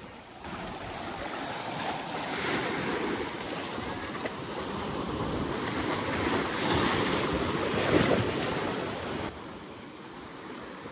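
Sea surf washing onto the beach, the rush swelling and easing, with wind buffeting the microphone. The noise is loudest in the middle and drops back about nine seconds in.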